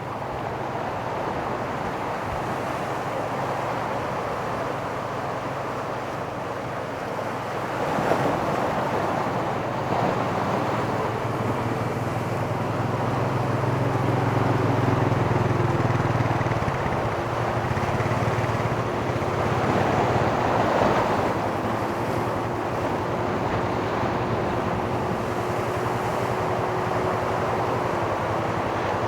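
Pacific surf breaking and washing up the beach, with wind buffeting the microphone; louder waves crash about eight seconds in and again about twenty seconds in. A steady engine hum joins under the surf partway through and holds to the end.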